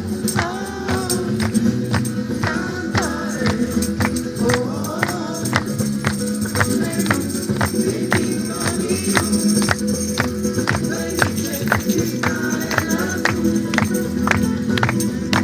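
Lively music: voices singing over a quick, even beat of sharp percussive strikes, with a tambourine-like jingle.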